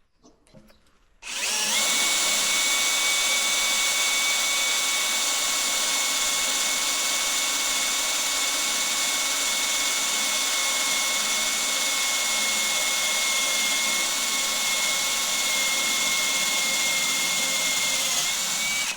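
Electric drill running steadily at constant speed, drilling through a barrel's hoop into the oak stave. It starts about a second in, its whine sags slightly just before it stops at the end.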